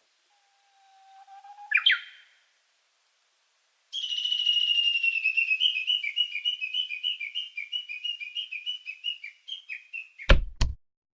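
A short steady tone ending in a sharp chirp, then, after a pause, a bird-like whistled song of fast warbling notes held near one high pitch for about six seconds. It ends with two sharp clicks.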